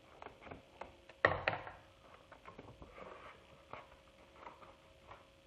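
Handling noise from a clear plastic face visor: two sharp plastic clicks about a second in, a moment apart, then faint rustling and small taps.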